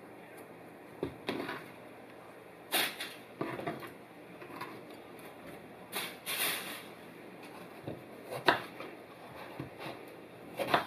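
Kitchen knife peeling and cutting an eggplant on a plastic cutting board: irregular short scrapes and taps, a few seconds apart.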